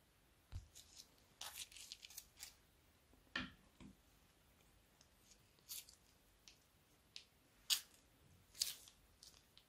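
Faint, scattered crinkles and clicks of a plastic piping bag being handled and squeezed to pipe slime. There is a light knock about half a second in and another just after three seconds, and the sharpest clicks come near the end.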